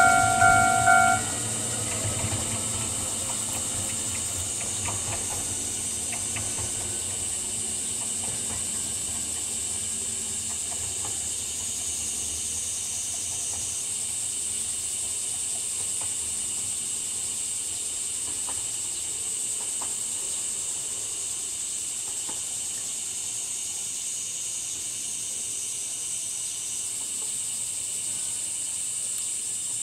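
A steady, high-pitched chorus of cicadas. Under it, for the first several seconds, come faint clicks from an electric train as it rolls away over the rails. Background music cuts off about a second in.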